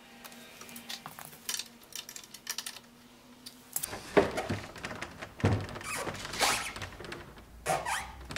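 A few light clicks, then from about four seconds in a series of knocks and rubbing scrapes: the rubber-tired wagon wheel being turned against a straight steel side roller fitted under the wagon box.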